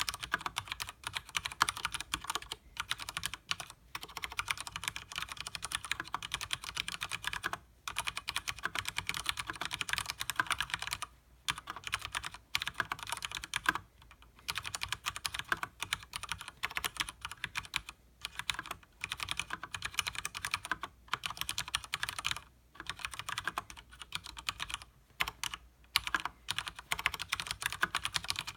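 Continuous fast typing on a Leopold FC900R mechanical keyboard with Cherry MX Speed Silver linear switches and double-shot PBT keycaps: a rapid stream of light key clacks with a few brief pauses.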